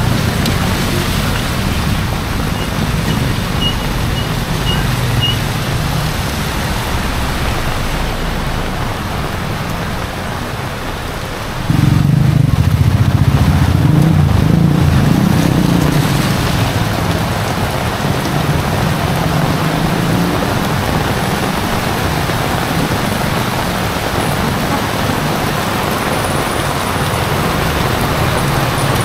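Heavy rain falling steadily, with the low rumble of road vehicles under it. The rumble gets suddenly louder about twelve seconds in and then slowly eases.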